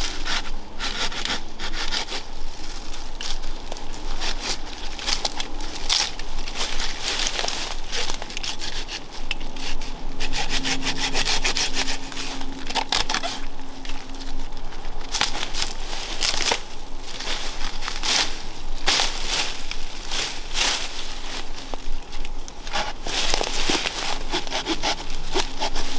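Hand pruning saw cutting through English ivy stems on a small tree's trunk, in a steady run of back-and-forth strokes. The ivy is being girdled, cut all round the trunk, to kill it and save the tree.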